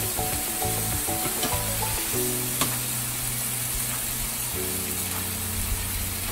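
Eggplant and Thai basil sizzling and bubbling in a frying pan of soy sauce and cornstarch sauce, a steady hiss, over background music.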